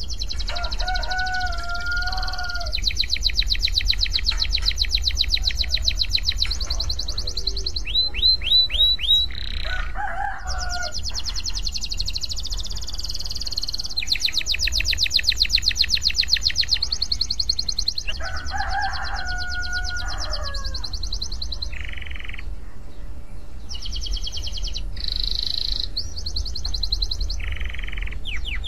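Domestic canary singing: long, fast trills of rapidly repeated high notes, broken about eight seconds in by a few quick downward-sliding whistles. A lower, longer call sounds twice in the background, over a steady low rumble.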